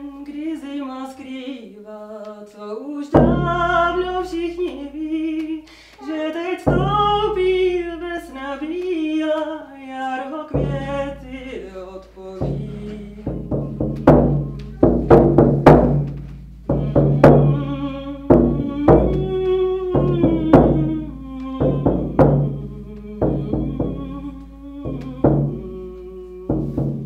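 A woman's voice singing a wavering melody while she beats a large hand-held frame drum with a padded beater. The drum strikes are light and sparse at first, then from about halfway through come loud and steady under the song.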